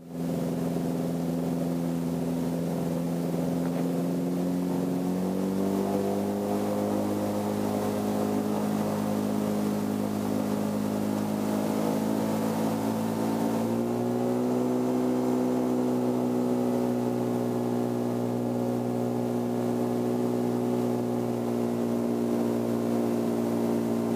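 Chinook ultralight's engine and propeller running steadily while the plane taxis, its pitch stepping up twice, about five seconds in and again just past halfway.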